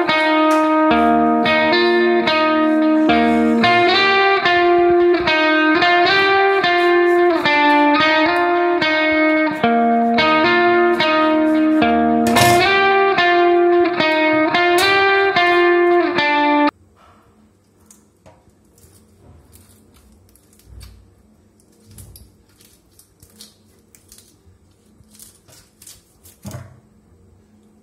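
Background guitar music that cuts off suddenly about two-thirds of the way through. Faint clicks and handling noises follow, with a small snip near the end, as a fish is trimmed with kitchen scissors in a steel sink.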